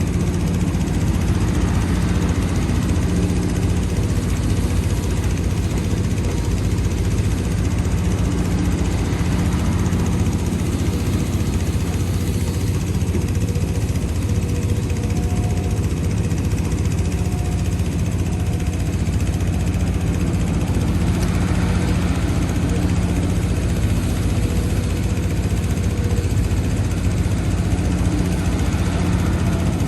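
Heavy diesel engine of earthmoving machinery running at a steady speed, a low, even drone that doesn't change.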